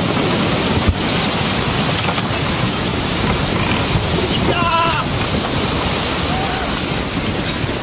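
Loud, steady rush of surging sea water, mixed with wind buffeting the microphone, with a sharp click about a second in.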